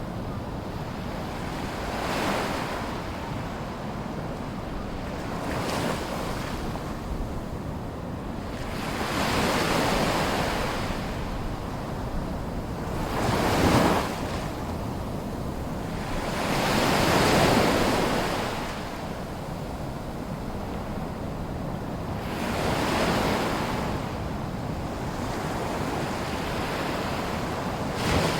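Small waves washing ashore in a sea lagoon, one after another over a steady wash of water, each swelling and falling away every few seconds; one wave about halfway through breaks more sharply than the rest.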